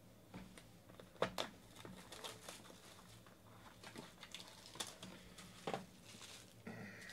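A trading-card box and its wrapping being torn open and handled by hand: scattered crinkles, light rips and small knocks, the sharpest about a second in.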